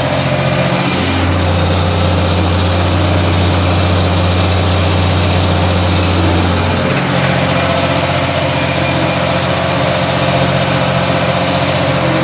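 Ursus 1224 tractor's diesel engine running steadily, with a deeper, stronger drone from about a second in until about seven seconds, when it drops back.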